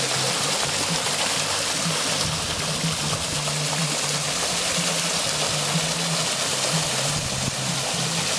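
Water running steadily down a decorative stone waterfall, with background music that has a low, shifting bass line.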